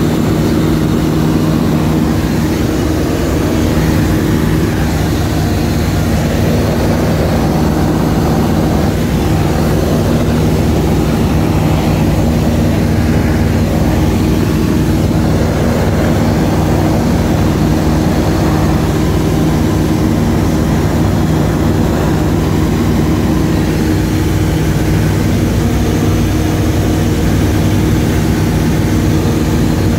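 Light aircraft's engine and propeller droning steadily in cruise flight, heard from inside the cabin, loud enough to drown out speech.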